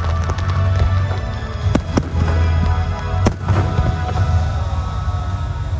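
Fireworks going off: three sharp bangs, two close together about two seconds in and another about a second later, with a few lighter pops in the first second, over loud music with a heavy bass.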